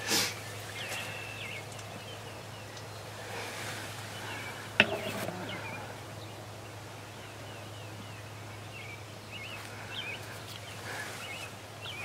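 A single sharp snap of a bow being shot at a turkey about five seconds in, with small birds chirping faintly throughout.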